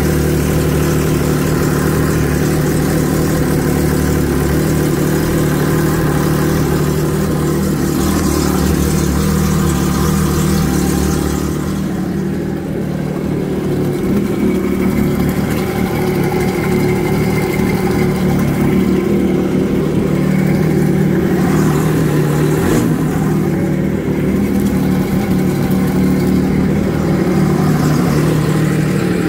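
Freshly rebuilt engine of a 2016 Yamaha VX personal watercraft running steadily out of the water, cooled by a garden hose, during its post-rebuild function test. Its tone changes a little about twelve seconds in.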